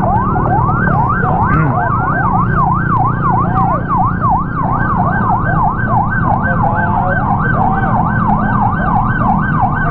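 Police sirens on a fast yelp: a rapid rising-and-falling wail, about four sweeps a second, with two patterns overlapping. Vehicle engines run underneath.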